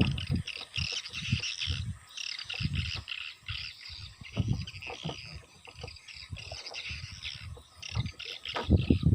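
Birds and insects chirping densely and continuously, with irregular low thumps mixed in.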